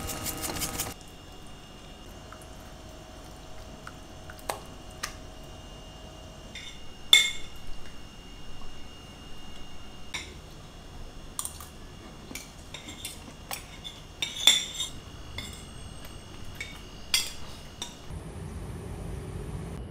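Metal cutlery clinking and scraping against ceramic plates and a pan during a meal: scattered light clinks that ring briefly, the loudest about seven seconds in and again near fourteen and seventeen seconds.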